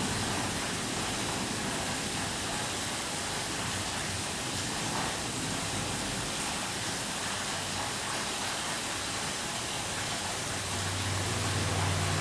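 Light rain heard from indoors: a steady, even hiss. A low rumble of thunder builds up near the end.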